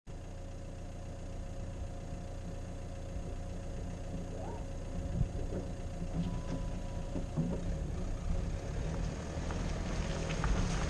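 Dacia Duster's 1.5 dCi four-cylinder turbodiesel engine idling steadily, heard from outside the car, growing gradually louder from about five seconds in.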